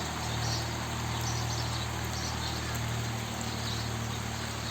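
Steady outdoor background noise with faint, repeated insect chirps.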